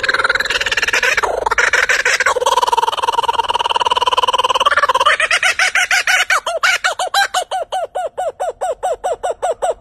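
Laughing kookaburra calling: drawn-out wavering notes give way, about five seconds in, to a fast, even run of laughing notes, about four or five a second.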